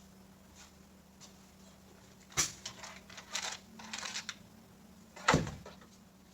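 A sharp knock, a couple of seconds of rustling and scraping, then a heavier, deeper thump: parts being handled and set down inside a vehicle during dash work, over a low steady hum.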